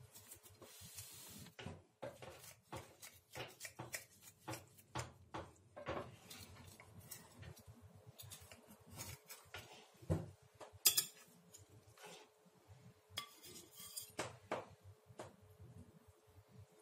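Knife cutting through a crisp pan-fried börek on a glass serving plate: a run of small scrapes and clicks as the blade meets the glass, with a few sharper clinks about ten and eleven seconds in.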